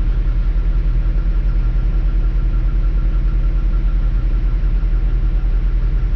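Hino medium-duty truck's diesel engine idling steadily with an even, rapid throb, heard from inside the cab.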